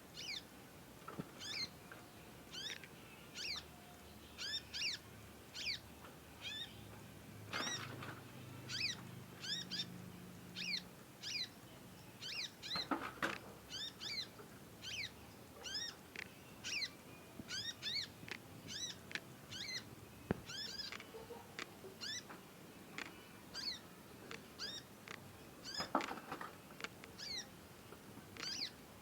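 Young conin songbird chirping: a long series of short, high, downward-sweeping squeaks, about one or two a second, with a few louder, fuller calls among them. It is a juvenile still learning its song.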